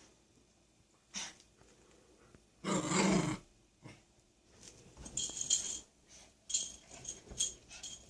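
A dog gives a short growl about three seconds in while playing with a kitten, then a run of short, scratchy noises follows.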